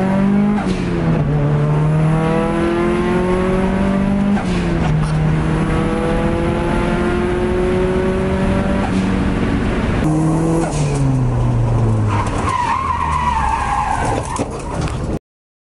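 Turbocharged SR20DET four-cylinder of a Nissan S13 Silvia accelerating hard through the gears, heard from inside the cabin: revs climb and drop back at each upshift. Near the end the revs fall away and tyres squeal as the car slides, then the sound cuts off suddenly.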